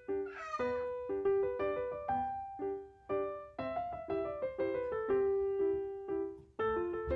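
Background piano music: a light melody of single notes and chords played at a steady pace.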